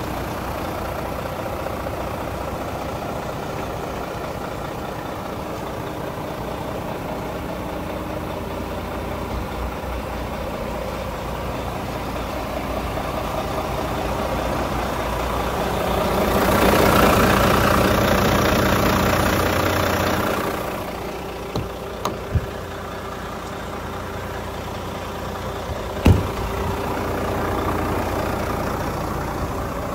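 Iveco Trakker AT440 tractor unit's six-cylinder diesel engine idling steadily. It swells louder for a few seconds about halfway through, and a few sharp clicks follow later.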